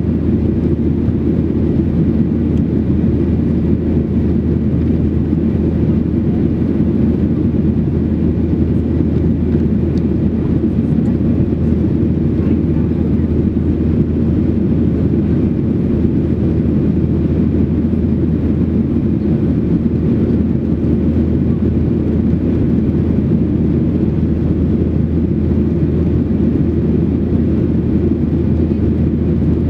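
Steady low rumble inside the cabin of a Boeing 737-800 in flight: its CFM56-7B engines and the airflow, heard from a window seat over the wing.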